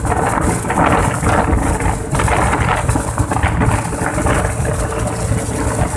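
Steady wind rush and buffeting on the microphone while riding a Yamaha Mio Sporty scooter at speed, with the scooter's engine and tyre noise running underneath.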